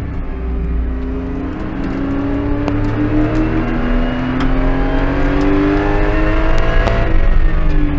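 Porsche Cayman GT4 Clubsport's 3.8-litre flat-six heard inside the cockpit, accelerating hard with the revs climbing steadily for several seconds. Near the end the revs start to fall.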